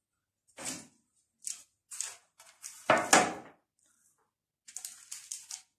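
A metal baking tray being handled and set down on the kitchen counter: a few separate knocks and scrapes, the loudest about three seconds in, then light rustling and ticking near the end as the dough rounds are picked up.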